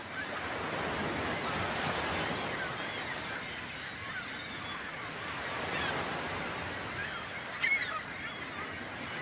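Steady wash of waves with birds calling several times over it; the clearest call comes about three quarters of the way through.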